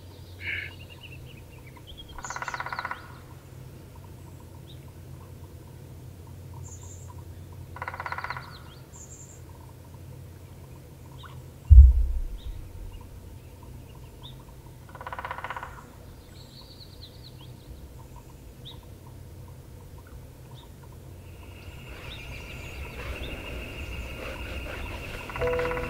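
A bird calls three times, each call under a second long and several seconds apart, over a low steady hum. A single deep thump about twelve seconds in is the loudest sound, and music with held tones fades in near the end.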